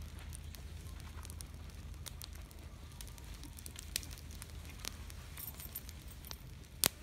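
Small open fire of dry leaves and twigs crackling, with scattered sharp pops and one louder pop near the end.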